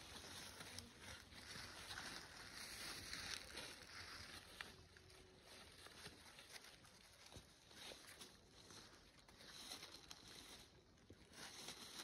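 Near silence: faint outdoor ambience with scattered soft rustles and ticks from goats stepping and browsing in dry leaf litter.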